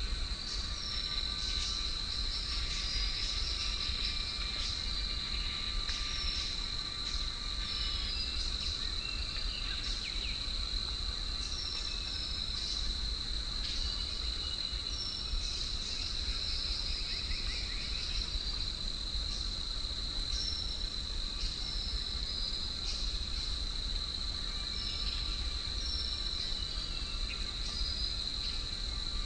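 Forest insects keeping up a steady high-pitched drone, with birds giving short high chirps every second or two above it and a low rumble of wind underneath.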